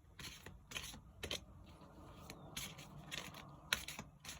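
A deck of oracle cards being shuffled quickly by hand: a run of irregular papery flicks and clicks, with a steadier rustle of cards sliding in the middle.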